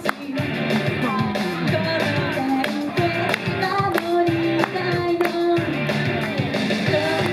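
Japanese idol pop song: female vocals over a backing track with a steady drum beat.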